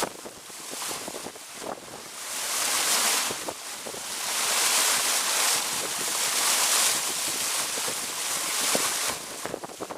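Rushing water of a waterfall mixed with gusting wind buffeting the microphone, the hiss swelling to its loudest in the middle and easing near the end, with a few sharp taps scattered through it.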